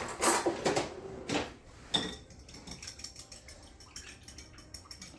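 A utensil stirring a liquid marinade in a cup, clinking against the sides: a few heavier knocks in the first two seconds, then quick light taps, several a second.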